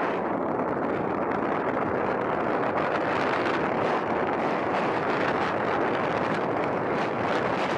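Steady rush of wind over the microphone of a camera riding on a moving electric scooter.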